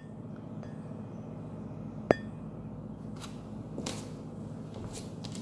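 A single sharp metallic click with a brief ring about two seconds in, over a steady low hum, followed by a few softer scuffs.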